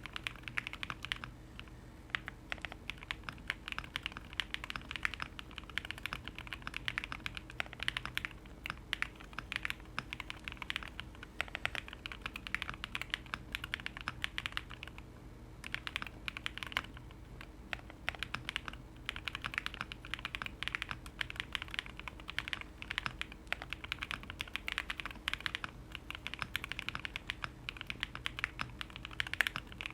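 Continuous typing on a custom mechanical keyboard with lubed OwLab Tungsten linear switches, PBT keycaps, a polycarbonate plate and full foam, giving rapid keystroke clacks. The typing pauses briefly about a second in and again around fifteen seconds in.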